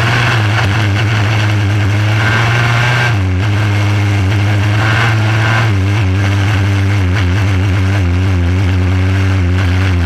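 Micro sprint car engine running on part throttle, heard from the cockpit, its pitch and level shifting a little as the throttle is worked, with a brief drop about three seconds in.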